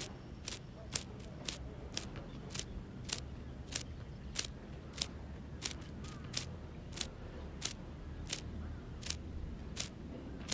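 A spinning reel being cranked steadily, giving a sharp click on each turn about every 0.6 s, over a low rumble of wind.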